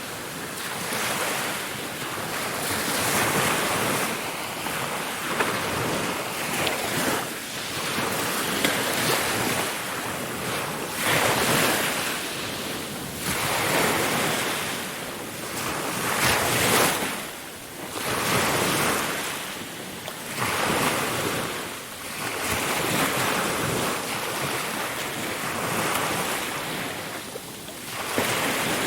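Ocean waves breaking and washing on a shore, the surf swelling and falling back every few seconds.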